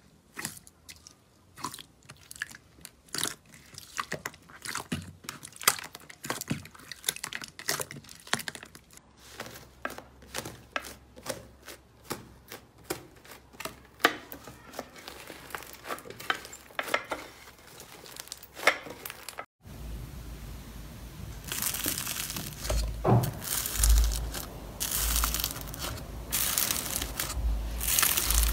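Hands squeezing, poking and stretching slime: a dense run of crackling, popping clicks. About two-thirds of the way in it breaks off abruptly into a louder, thicker crunching with dull thuds as a different slime is pressed.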